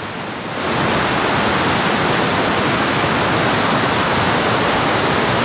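Fast-flowing muddy floodwater rushing in a steady, loud wash of noise that grows louder about half a second in.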